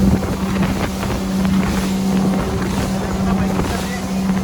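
Motorboat engine running at a steady pitch, with wind rushing over the microphone.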